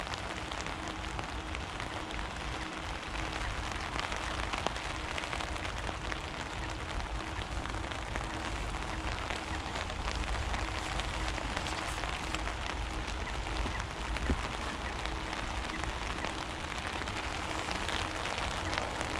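Steady pattering of water on the lake surface, made up of many tiny ticks, with a faint steady hum underneath.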